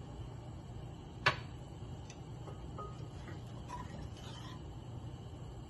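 Quiet stovetop sounds from a pressure cooker base of water on a gas burner: a steady low hum, one sharp click about a second in, and faint stirring with a wooden spoon about four seconds in.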